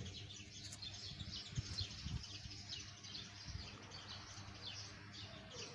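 Small birds chirping over and over in the background, many short quick calls, with a few soft low thumps of handling about one and a half, two and three and a half seconds in.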